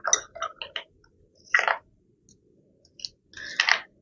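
Metal spoon clicking and scraping against a small glass bowl while stirring a thick paste of ghee and wheat flour. A quick run of clicks comes in the first second, then a few short scrapes.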